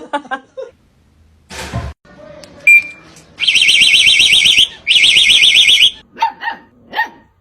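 An electronic alarm warbling rapidly at a high pitch in two long blasts, followed near the end by a dog barking three times.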